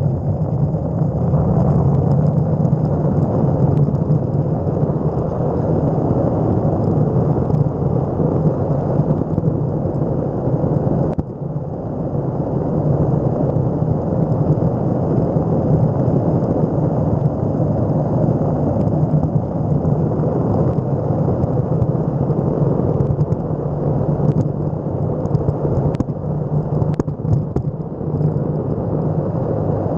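Electric skateboard rolling fast over asphalt: a loud, steady rumble of the wheels and board on the road surface. The rumble dips briefly about eleven seconds in, and a few sharp clicks come near the end.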